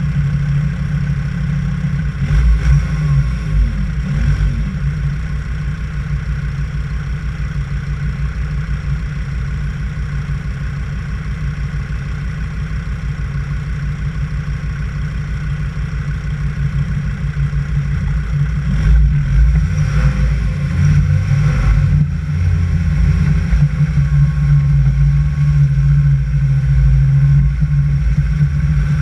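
A vehicle engine idling steadily, then revving up from about two-thirds of the way through as the vehicle pulls away.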